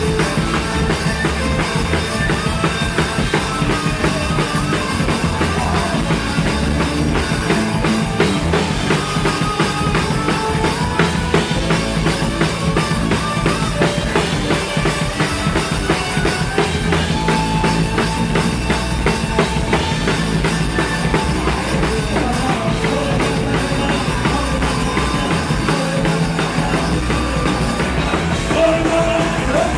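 Punk rock band playing live and loud, with the drum kit to the fore: driving bass drum and snare under sustained bass and guitar.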